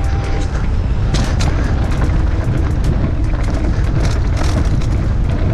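Constant wind rumble on a GoPro microphone as a mountain bike is ridden down a bike-park trail, with irregular rattles and knocks from the bike and tyres over rough ground.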